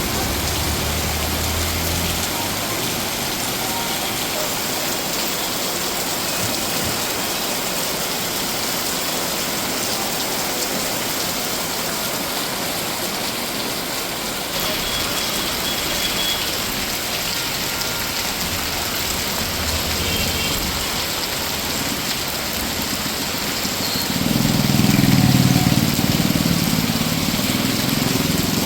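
Heavy rain pouring down in a steady, even hiss. About four seconds before the end, a louder low rumble joins for a few seconds.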